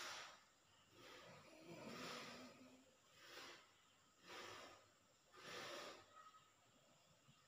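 A sleeper snoring softly: breathy, snuffling breaths come about once a second, with a low snore on an inhale about two seconds in.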